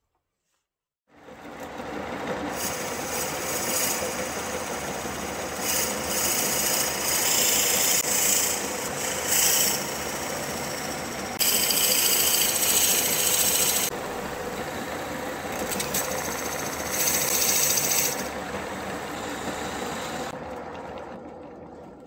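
A wood lathe starts up about a second in and runs while a drill bit in the tailstock chuck bores into the end grain of the spinning wood blank. The cutting gives a loud hiss that comes and goes in several bouts as the bit is fed in and eased off, then fades near the end.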